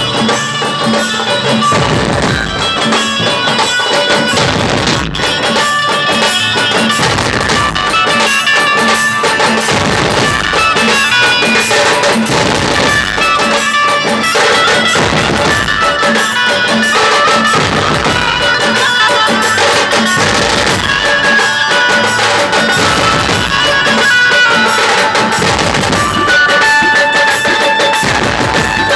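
Dhumal band playing loud, drum-driven music: a steady beat of drums under a sustained melody line.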